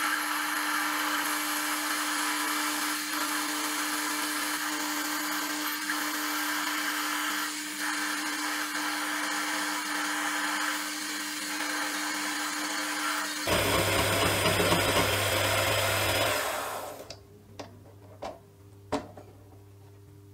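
Small metal lathe running with a steady hum while a turning tool cuts a small metal pin. About 13 seconds in the sound switches abruptly to a louder, deeper running, which dies away a few seconds later as the lathe stops. A few sharp clicks follow as the chuck and part are handled.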